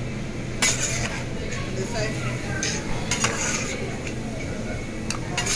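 Hibachi chef's metal spatula clinking and scraping against the steel griddle and a metal tray. A handful of sharp clinks, the loudest about half a second in, over a steady background din.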